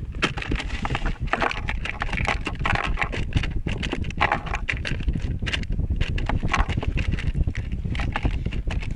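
Wind buffeting the microphone as a steady low rumble, with a dense, irregular run of crackling clicks over it.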